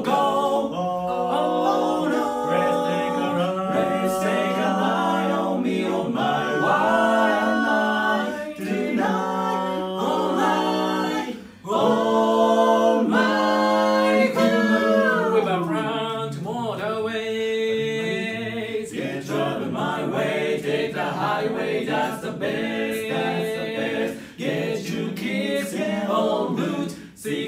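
Male barbershop quartet singing a cappella in four-part close harmony: a run of held chords, with a falling swoop in pitch about halfway through.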